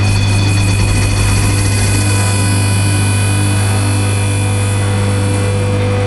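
Micro Balers TC20 twin-chamber baler running under power, its motor giving a loud, steady hum as the ram works down on the load. A higher whine comes in and grows stronger in the second half.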